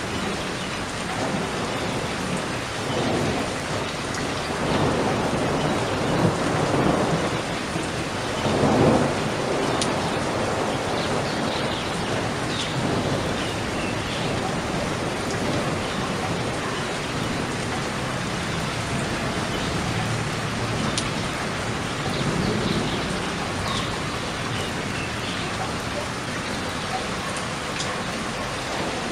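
Steady rain falling, with low rumbles of thunder swelling several times, the loudest about nine seconds in.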